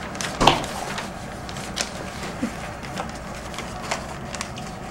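A sheet of newspaper being handled: scattered crinkles and rustles of paper, with a louder rustle about half a second in.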